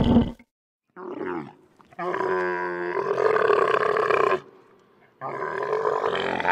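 Camel calling: a short call about a second in, then two long, deep, pitched calls of about two seconds each, with brief pauses between them.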